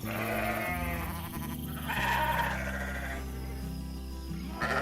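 Sheep bleating: a wavering call at the start and another about two seconds in.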